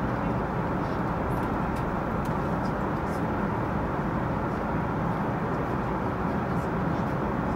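Steady rush of engine and airflow noise inside an Airbus A380 cabin in cruise, at an even level throughout.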